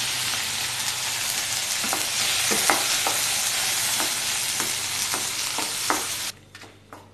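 Freshly added chopped tomatoes sizzling in hot oil in a metal kadai as they start to fry, stirred with a wooden spatula that knocks against the pan a number of times. The sizzle cuts off suddenly near the end.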